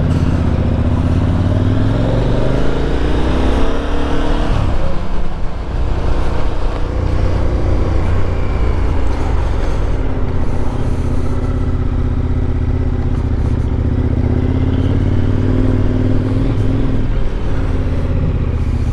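Motorcycle engine accelerating, its pitch rising over the first few seconds and falling sharply at a gear change about four and a half seconds in. It then runs steadily at road speed, and the engine note drops again near the end as the rider backs off.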